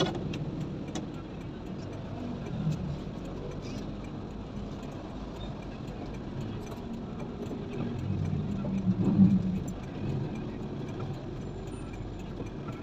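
Low, steady vehicle engine rumble heard from inside a cab, growing louder for a moment about nine seconds in.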